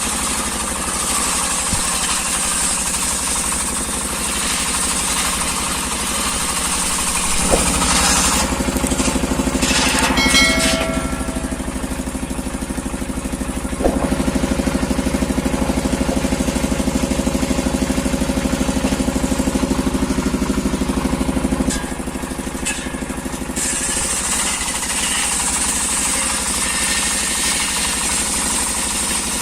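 Engine-driven sawmill running steadily. From about seven seconds to twenty-two seconds the machinery gets louder and changes tone as the saw works through a teak log, with a few brief high squeals early in the cut. It then drops back to lighter running.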